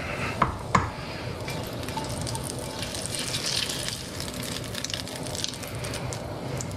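Olive oil heating in a frying pan with a light, steady sizzle, as the pan comes up to temperature before the egg and potato mixture goes in. Two sharp utensil clinks come in the first second.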